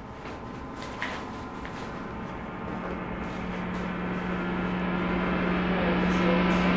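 An eerie film-score drone swelling steadily louder: a hiss-like wash, joined by a steady low hum about two and a half seconds in. A faint knock comes about a second in.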